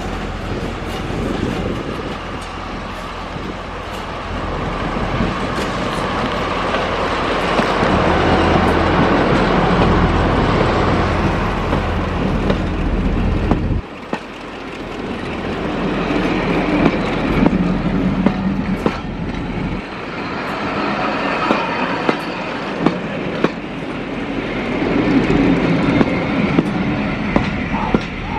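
Heritage railway train running along the West Somerset Railway line: a heavy rumble with the clatter of wheels on the rails. The sound drops away sharply about halfway through, then builds again with a series of sharp clicks.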